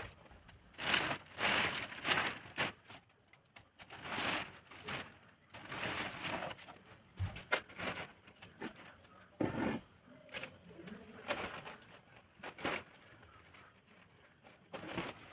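Polythene sheet rustling and crinkling in irregular bursts as it is handled and spread over a pipe frame.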